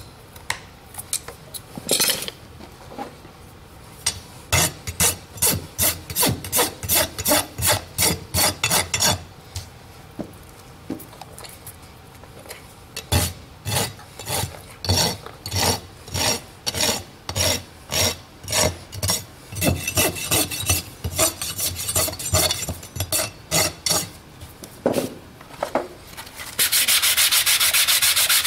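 A farrier's rasp scraping a horse's hoof wall and its Vettec Adhere patch in short, repeated strokes, about two a second. Near the end it turns into fast, continuous rubbing that is louder.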